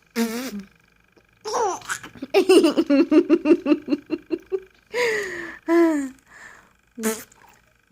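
A three-month-old baby girl laughing: a long run of quick rhythmic laughs in the middle, with shorter bursts of laughing before and after.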